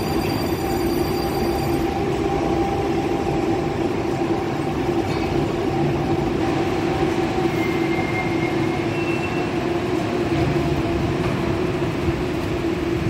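81-725.1 "Baltiets" metro train slowing to a stop at the platform: steady rumbling running noise with a low electric hum, and a high whine that dies away about two seconds in. Two short high tones sound around the middle.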